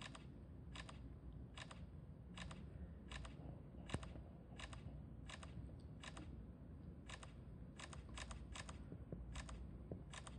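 Faint smartphone camera shutter sounds from a Google Pixel XL and a Samsung Galaxy S8+, firing one after another as photos are taken in quick succession. There are about seventeen short clicks, some of them doubled, at roughly one to two a second.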